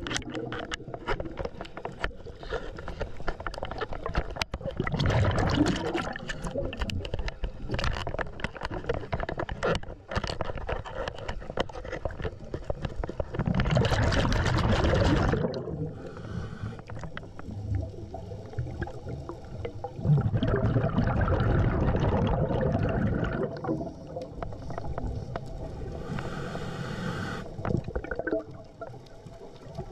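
Scuba diver breathing through a regulator underwater: loud gurgling rushes of exhaled bubbles alternate with quieter spells, with scattered clicks from handling of the camera housing.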